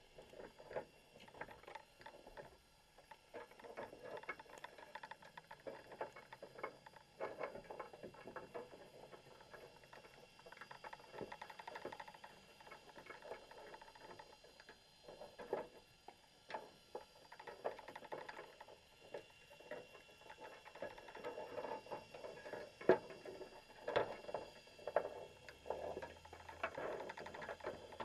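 Underwater sound from a camera in a waterproof housing inside a baited crab trap: a constant run of irregular, muffled clicks and taps, a few sharper ones near the end.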